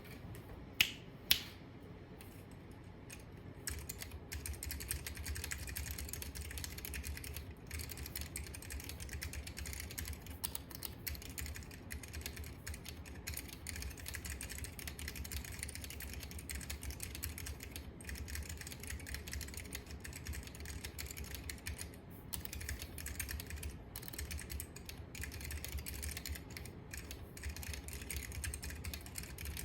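Mechanical keyboard with orange Alps switches being typed on quickly and continuously: a dense run of key clicks that starts about four seconds in and breaks briefly now and then. Two sharp, louder clicks come about a second before the typing begins.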